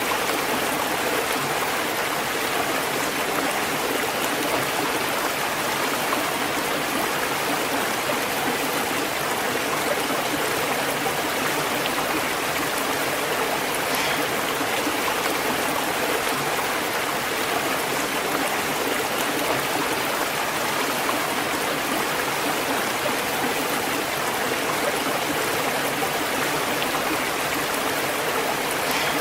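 Waterfall and flowing stream water rushing steadily, an even, unbroken splashing noise without any deep rumble.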